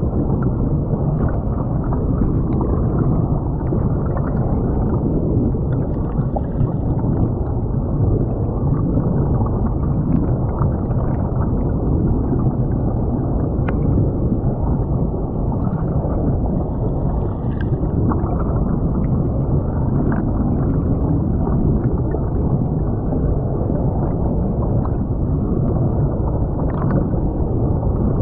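Creek water flowing and gurgling as heard by an FPV drone's camera lying submerged in the stream: a steady, muffled low rumble with occasional faint ticks.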